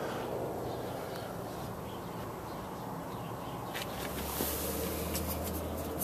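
Steady outdoor background noise with a few faint clicks of the camera being handled close to a plywood box; a low steady hum comes in about four seconds in.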